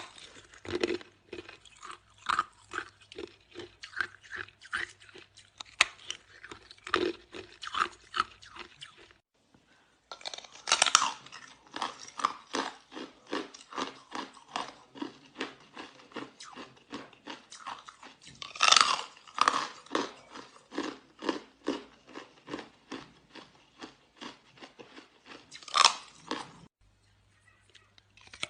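Ice being bitten and chewed close to the microphone: a dense run of crisp crunches, several a second, with a few louder bites. It breaks off briefly about a third of the way in and again near the end.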